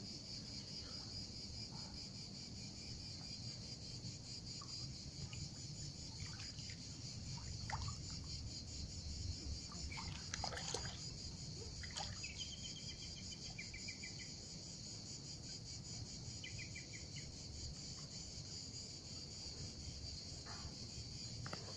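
A steady, high-pitched chorus of insects chirring, with faint water sloshing and trickling as someone moves about in a swimming pool.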